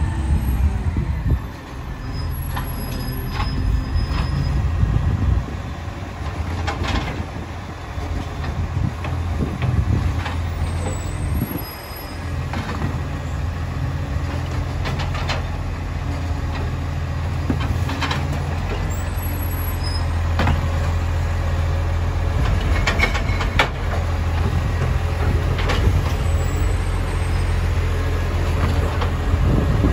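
Dennis side-loader garbage truck's diesel engine running as it pulls up to the kerb, its hydraulic arm lifting and tipping wheelie bins into the hopper, with a series of sharp clanks and knocks.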